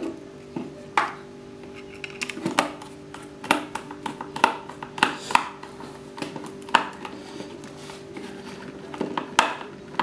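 Sharp, irregular clicks and taps of a screwdriver and stiff wire against the plastic terminals of an electrical contactor, as a wire is pushed into the L1 terminal and its screw is tightened.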